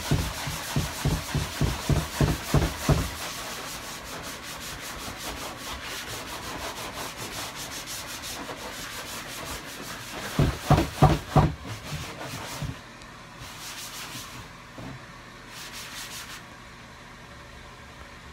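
Scouring side of a sponge scrubbed back and forth over a wet plastic dresser top: a rasping rub in quick strokes, about three a second, loud at the start and again about ten seconds in, quieter and steadier in between and fainter toward the end.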